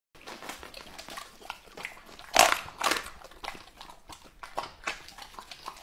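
A Rottweiler eating raw meat from a plate: wet smacking and chewing clicks, with two louder bursts about two and a half and three seconds in.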